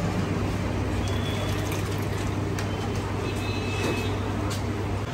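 Steady background din: a constant low hum under an even rushing noise, with faint voices and a few brief high-pitched tones.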